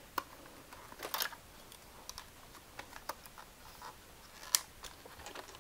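Scattered light plastic clicks and scratches of hands fiddling with a battery-powered toy robot that is not working properly, a few louder clicks among them.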